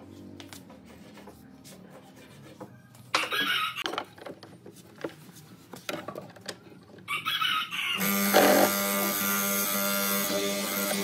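A rooster crowing, with clucking. About eight seconds in, a steady drone starts and becomes the loudest sound.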